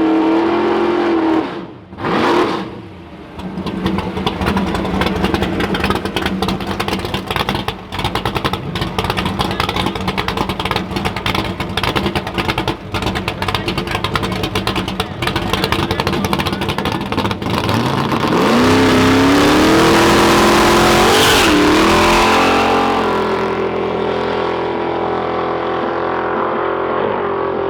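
Drag car's V8 engine running with a choppy, crackling lope for some fifteen seconds, then revving up about eighteen seconds in, holding high for a few seconds, and settling back to a steady lower note.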